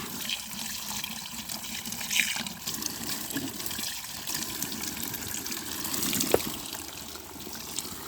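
A strong stream of water running and splashing steadily, with a brief sharp knock a little after six seconds in.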